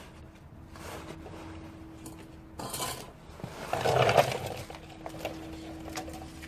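Metal parts and tools being handled during clutch fitting: clinking and scraping, loudest in two short stretches near the middle, over a faint steady hum.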